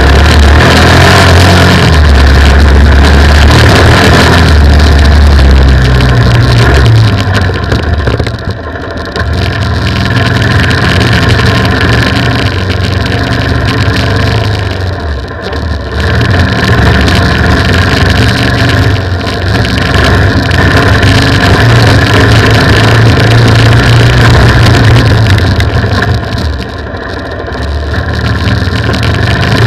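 Off-road motorcycle engine running under throttle, heard up close from the bike. The throttle eases off briefly three times, about a third of the way in, around the middle, and near the end.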